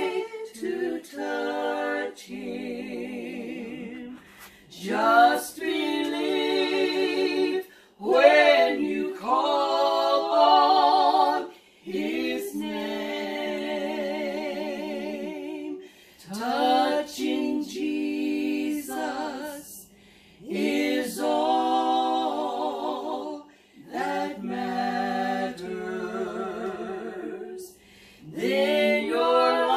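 Women singing a worship song together without accompaniment, in long held phrases of a few seconds each with short breaths between.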